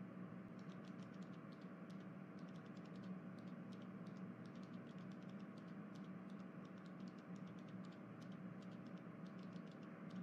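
Faint typing on a computer keyboard, short clicks in quick runs, over a steady low electrical hum.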